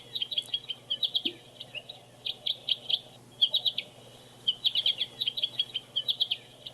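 Recorded American goldfinch song played from a bird-song book's speaker: short phrases of rapid, high twittering chirps with brief pauses between them.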